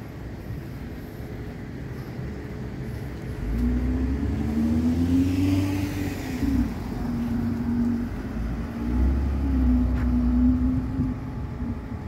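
An engine running, growing louder about three and a half seconds in, its pitch shifting up and down a few times.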